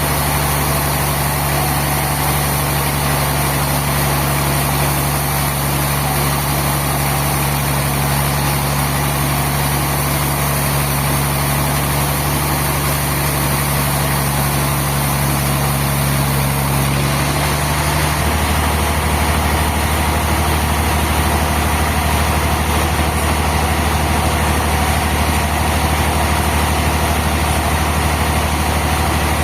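Sawmill machinery running with a steady, loud mechanical drone and hiss. About two-thirds of the way through, the low hum shifts down in pitch and holds there, as if the load on the machine changed.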